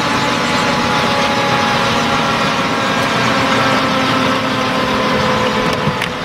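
Eurocopter EC155 helicopter running on the ground with its rotors turning: a steady turbine whine over the rotor and engine roar. A brief click sounds about six seconds in.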